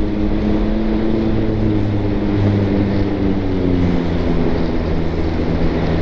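A tracked Jeep, running on Dominator XL rubber tracks, drives steadily over a snow-packed road, heard from inside its cab. Its engine drones with a pitch that eases slowly downward over the first few seconds.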